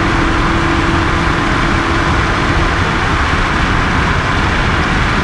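Rally car driving at speed, heard from inside the cockpit: engine and road noise run steadily.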